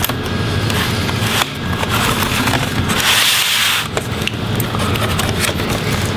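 Plastic laptop bottom cover being pried off with a slim tool: scraping along the seam with repeated sharp clicks as the retaining snaps pop loose, and a longer scrape about three seconds in.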